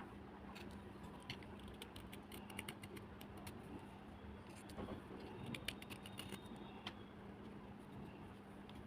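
Faint, irregular crunching and crackling of wet black slate cubes, many small sharp clicks at uneven intervals, over a steady low hum.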